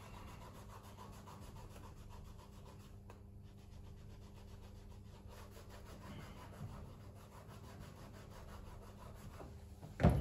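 Cloth rubbing a white rubber shoe sole, a faint steady scrubbing as the sole is cleaned with alcohol. Near the end a single sharp knock as the shoe is set down on the steel worktable.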